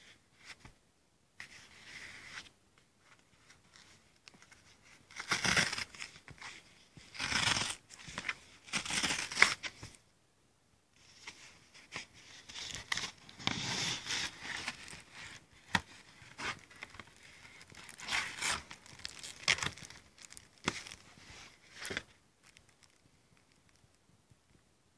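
Cardboard mailer being torn open and handled by hand: irregular bursts of tearing and rustling cardboard, dying down near the end.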